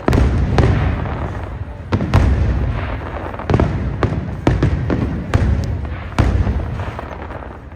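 Aerial fireworks bursting: a quick series of loud, sharp bangs, each trailing off in a low rumble, about ten over several seconds.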